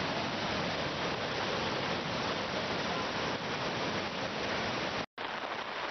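Muddy floodwater of a swollen stream rushing and churning through its channel and spilling over the bank, a steady rushing noise. It cuts off abruptly for a moment about five seconds in.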